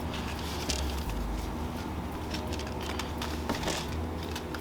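Light handling noises: a few soft clicks and rustles as foam plane parts and packaging are set down on a table, over a low steady hum.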